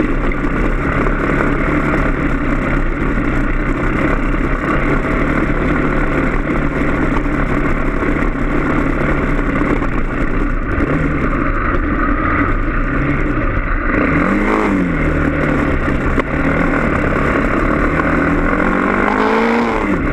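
Motorcycle engine running steadily for the first half, then the pitch swinging up and down as the throttle is opened and closed, climbing near the end.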